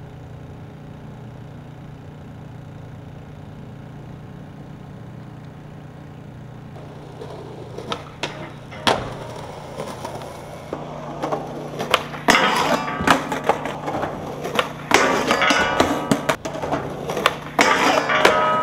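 Skateboard wheels rolling on concrete and the board clacking several times, then striking and riding a metal handrail near the end. A steady low hum runs underneath.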